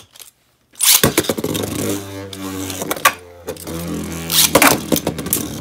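Beyblade Burst spinning tops ripped from their launchers into a plastic stadium about a second in, then spinning with a steady whirring hum. A few sharp clacks come as they strike each other and the stadium wall.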